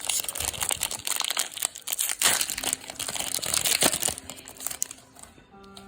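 A foil Pokémon card booster pack wrapper crinkling and crackling as it is handled and opened, dying down near the end.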